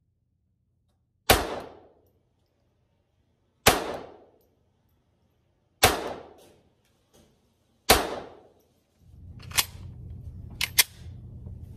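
Glock 44 .22 LR pistol firing four single shots about two seconds apart, each with a short ringing tail. After them come a few lighter, sharper clicks.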